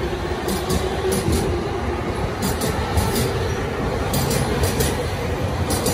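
Yellow-striped Chūō-Sōbu Line local electric commuter train running alongside the platform, its rumble steady, with repeated paired clicks as the wheels pass over rail joints and a faint hum.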